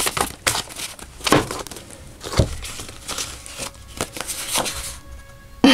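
Paper note cards being handled on a table: irregular light taps and brief rustles.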